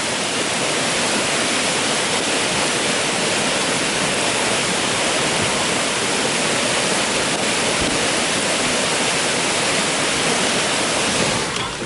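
Typhoon floodwater rushing in a steady, even torrent, with no let-up until the sound changes abruptly near the end.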